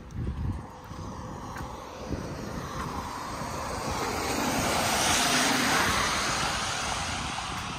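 A vehicle passing close by: a rushing noise that swells to a peak about five seconds in and then fades. There are a few knocks of handling noise at the start, and low wind rumble on the microphone throughout.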